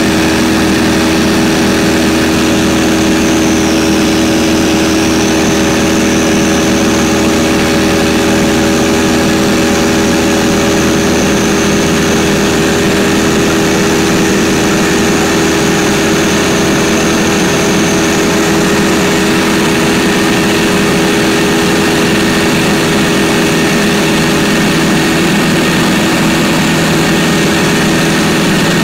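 Cabin drone of a 1946 Stinson 108 in flight: its Franklin flat-six engine and propeller running steadily, with a faint high whine over the hum.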